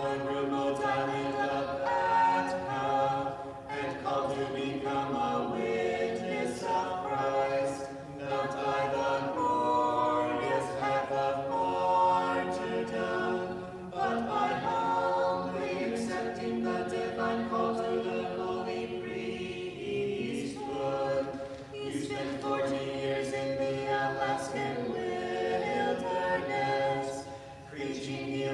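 Orthodox church choir singing a vespers hymn a cappella, several voices in harmony, in phrases of a few seconds with short breaks between them.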